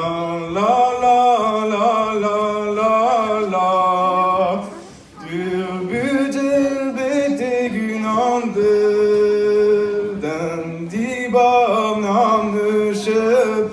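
A man singing a gwerz solo and unaccompanied in Breton, holding long notes that he bends and ornaments, with a short pause about five seconds in.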